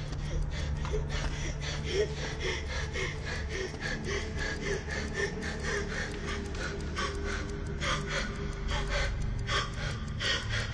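A woman breathing in quick, panicked gasps, about three or four a second, over a steady low drone.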